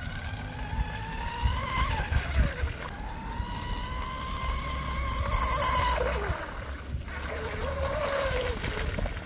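Electric motor of an RC tunnel-hull racing boat whining at speed on the water, its pitch rising and falling with the throttle. It drops off about two seconds in, runs high from about three to six seconds, fades, then comes back lower near the end.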